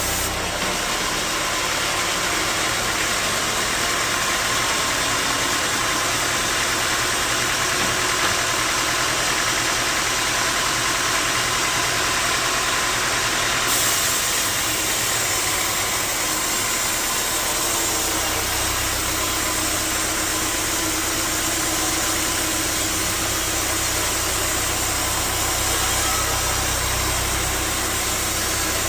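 Sawmill machinery running steadily, a loud even mechanical noise that shifts abruptly in character a few times.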